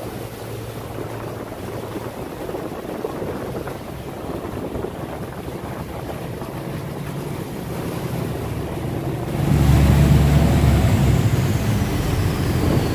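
Engine of a steel river barge running steadily under way, with water churning along the hull and wind buffeting the microphone. About nine and a half seconds in it all gets louder, with a heavy low rumble and a rushing noise.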